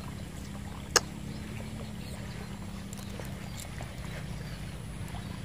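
A steady low engine-like hum, with one sharp click about a second in.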